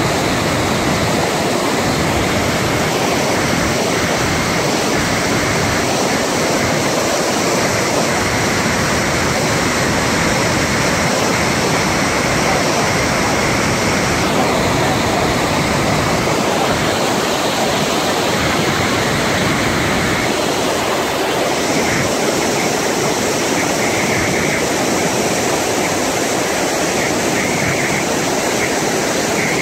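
The Rhine Falls, a large river waterfall, and its white-water rapids rushing: a loud, steady, unbroken noise of heavy falling and churning water.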